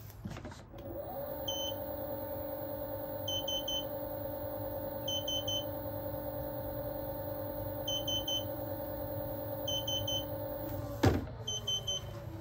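Trotter Magwheel T1 one-wheel board's hub motor spinning its wheel free at top speed: a steady electric whine that climbs as it spins up about a second in, then holds. Quick triple beeps repeat about every two seconds, the board's top-speed warning. Near the end there is a knock and the whine falls away as the motor winds down.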